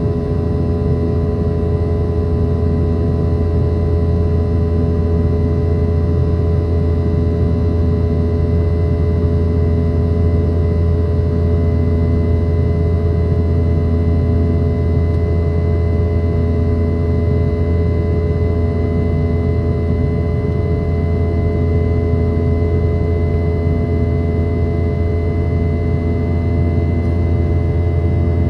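Steady drone of a Boeing 717's rear-mounted Rolls-Royce BR715 turbofans heard inside the cabin, with a strong low hum and several constant whining tones above it.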